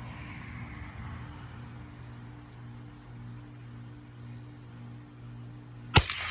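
A single .22 LR rifle shot, a sharp crack about six seconds in, over a steady low background hum.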